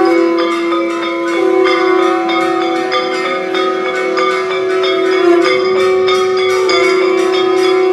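Temple bells rung rapidly and continuously for aarti, about four to five strikes a second, over a steady held tone.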